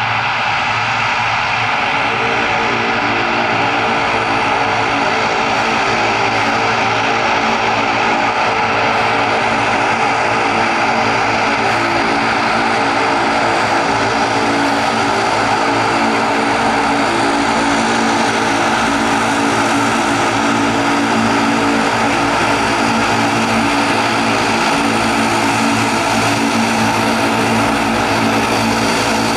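ATR 42-500's two Pratt & Whitney PW127 turboprop engines running steadily at low taxi power as the aircraft rolls slowly along the runway: an even propeller hum under a turbine hiss, with no change in power.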